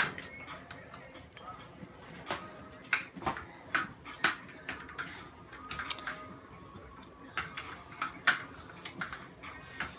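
Irregular light clicks and knocks of things being handled close to the microphone, roughly two a second, a few with a brief metallic ring.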